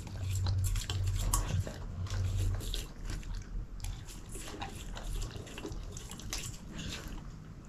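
Groenendael Belgian Shepherd eating moist chicken, egg and organ meat from a stainless steel bowl: irregular wet chewing and licking, with short clicks of muzzle and teeth against the metal. A low hum sits under the first few seconds.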